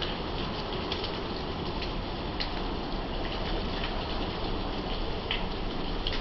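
Thunderstorm rain falling steadily, with scattered sharper drop ticks every second or so.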